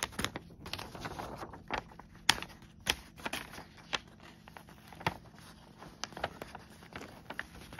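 Irregular light clicks and soft rustling: handling noise of small objects being moved about, with no clear rhythm.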